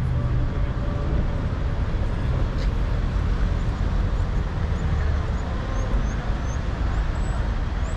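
Outdoor city ambience: a steady low rumble, with faint voices of people nearby and a few faint high chirps in the second half.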